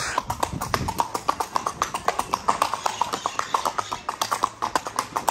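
Mangalarga Marchador horse's hooves clip-clopping on a cobblestone street: a rapid, even run of sharp hoofbeats at a brisk walking gait.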